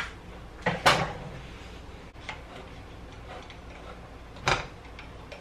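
An enamel cooking pot set down on an electric coil stove, with a couple of sharp clanks about a second in, light ticks after, and another knock near the end.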